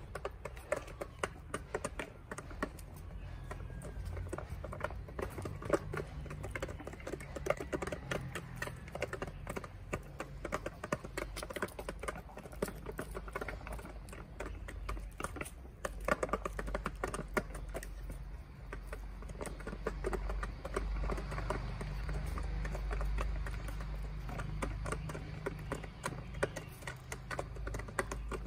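Chickens pecking feed from a plastic feeder pan: rapid, irregular beak taps and clicks, many at once. A low rumble swells underneath in the second half.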